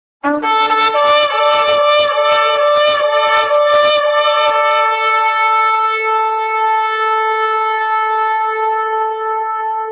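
Shofar blown in one long blast. It starts on a brief low note and breaks upward to a higher one, which sounds rough and broken for about the first four seconds. It then settles into one long, steady held note.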